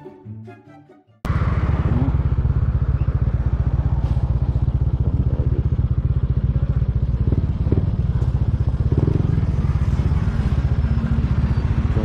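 Background music fades out. About a second in, a motorcycle engine cuts in and runs steadily with a rapid, even low pulse.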